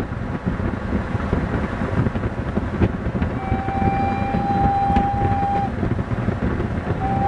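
Steam whistle of a Prussian P8 steam locomotive (class 38, ÖGEG 638.1301) giving one steady blast of about two seconds in the middle, with a second blast starting near the end. Under it runs the low rumble of the passing train.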